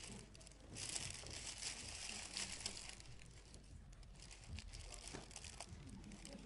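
Soft, irregular rustling and crinkling.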